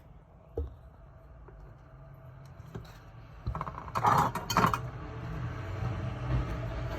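Small hard parts and tools being handled on a work surface during a drone repair: scattered light clicks, then a louder clatter about four seconds in. A steady low hum sets in shortly before the clatter.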